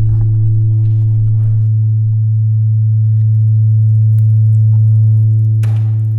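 A loud, steady low drone tone with a few fainter overtones above it, held without change, with faint scattered crackles and a brief rush of noise near the end as it begins to fade.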